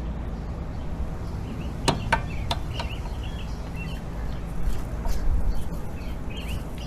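Birds chirping in the background, short calls repeating through the second half. About two seconds in, three sharp metallic clicks.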